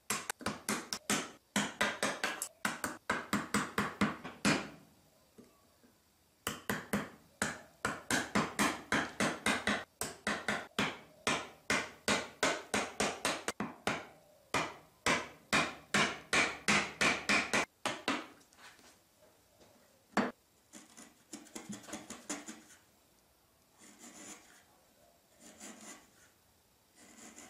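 A chisel driven into wood by quick, light hammer taps, several a second, in two long runs with a short pause between, chopping out the waste of a halving joint along its marking lines. After that, about two thirds of the way in, the chisel pares the wood by hand with softer scraping strokes.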